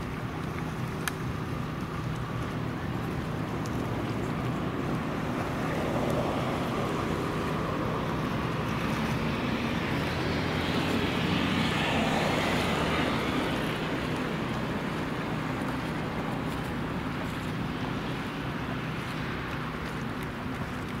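Steady rush of water and wind from a boat moving on the water, with a faint low steady hum underneath. The rush swells about six seconds in and eases off again after about fourteen seconds.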